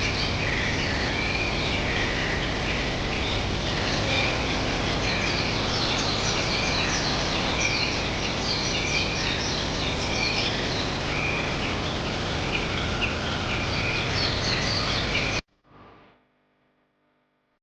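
Many small birds chirping and calling over a steady rushing background, which cuts off suddenly about fifteen seconds in.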